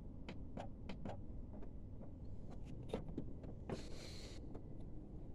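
Faint, irregular small plastic clicks as a finger works the switches and buttons in the control panel on the back of a melody wall clock, then a brief rustle of handling about four seconds in.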